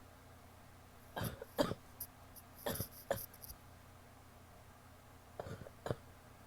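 A woman coughing wet, chesty coughs in three short bouts of two coughs each.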